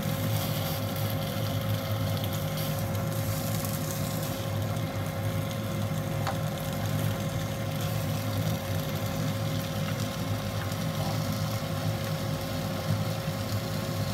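Mirin-marinated silver flounder fillets sizzling in a hot frying pan as they are laid in, with a steady low hum underneath.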